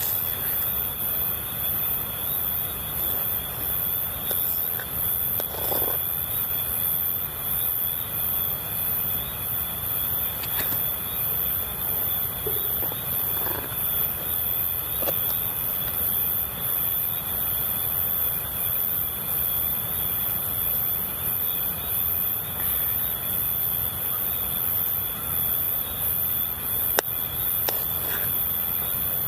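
Insects chirring steadily at several high pitches, the highest with a fast pulsing rhythm, over the even rush of a river. A few faint knocks, and one sharp click near the end.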